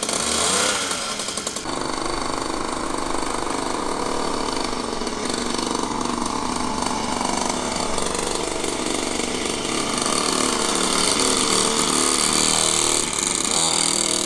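A child's petrol mini dirt bike's small two-stroke engine running. A louder burst in the first second or two, then a steady puttering drone whose pitch drifts slowly as the bike is ridden. It is running smoky, puttering more than it pulls.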